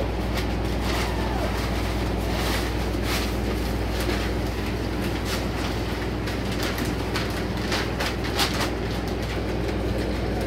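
Newspaper rustling and crinkling in short, irregular crackles as puppies walk on it and tug at a torn sheet, over a steady low hum.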